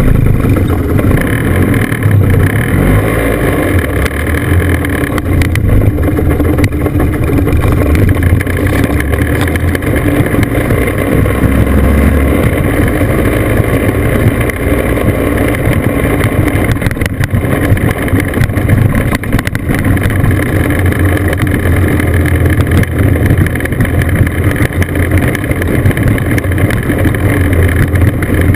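Classic scooter engine running while riding along.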